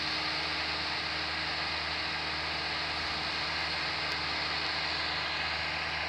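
Heavy diesel engine of construction machinery running steadily under a constant hiss.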